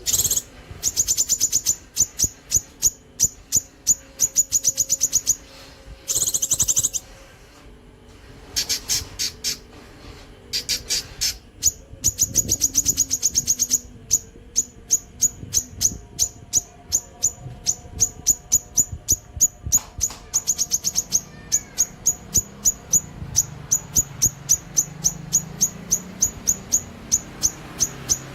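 A cucak kinoi singing in long trains of sharp, high repeated notes, the rapid-fire 'nembak' delivery. The first half has fast dense runs; from about halfway it settles into an even series of about three notes a second.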